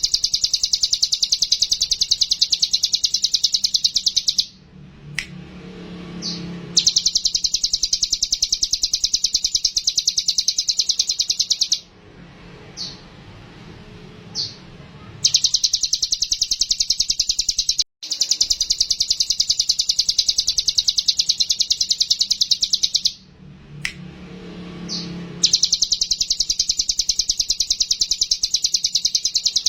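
Hill prinia (ciblek gunung) singing its rapid, rattling lure song: long runs of fast, evenly repeated high notes, each run lasting several seconds, broken by short pauses.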